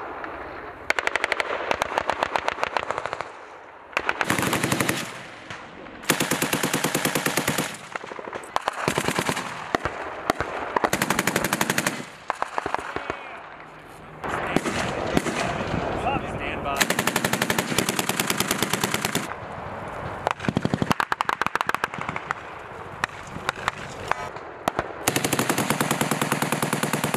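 Belt-fed machine guns firing on a live-fire range: about ten long bursts of automatic fire, each lasting one to two seconds, following one another with short gaps.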